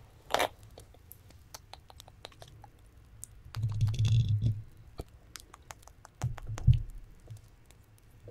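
Fingernails tapping and scratching on a microphone, making many light, uneven clicks. Low rumbling thumps of the hand rubbing the microphone come about four seconds in and again near seven seconds.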